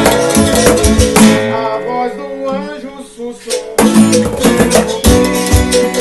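Acoustic guitar, berimbaus and cajón playing a Brazilian tune together. The cajón beats drop out about a second in, leaving quieter guitar and berimbau notes, then the full group comes back in with the beat past the middle.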